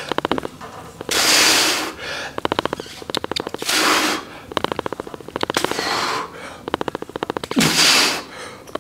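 A man breathing out forcefully as he lifts through a set of weight-machine reps: four loud, sharp exhales about two seconds apart, one per rep, with a low, rapid rattle between them.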